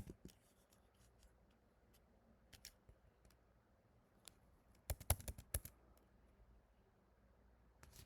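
Scattered keystrokes on a computer keyboard, with a quick run of several keys about five seconds in.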